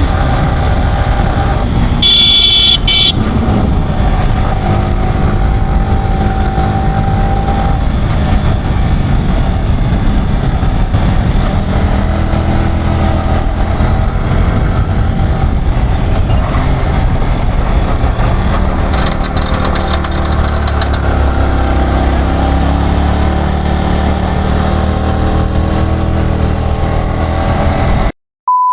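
Motorcycle engine running under way with road and wind noise, the bike the rider suspects has run out of engine oil and is overheating. A short horn honk about two seconds in; near the end the sound cuts out and a brief steady beep follows.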